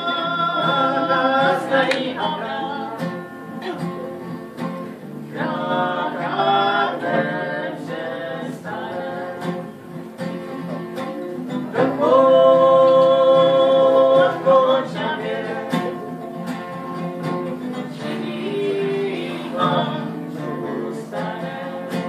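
A song played on two acoustic guitars with singing. The voice holds long notes in several phrases, and the loudest held phrase comes about twelve seconds in.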